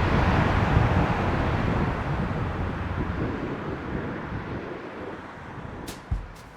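Wind buffeting the microphone, a steady rushing noise that slowly fades away. A drum beat starts near the end.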